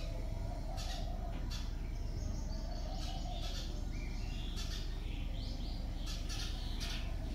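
Small birds chirping repeatedly in short high calls over a steady low hum.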